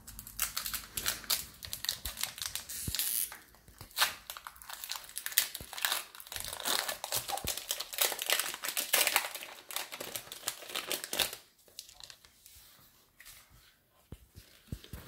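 Foil Pokémon booster pack wrapper being torn open and crinkled in the hands, a dense crackling that goes on for about eleven seconds. After that it dies down to faint rustles and clicks of handling.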